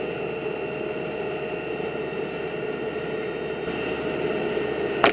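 A motorboat's engine running steadily, heard from the boat's deck: an even hum carrying a few constant tones. A single sharp click comes at the very end.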